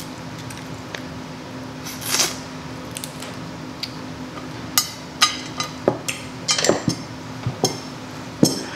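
Crab leg shells being cracked and snapped apart: a run of sharp, separate cracks and clicks, with a brief rustle about two seconds in, over a faint steady low hum.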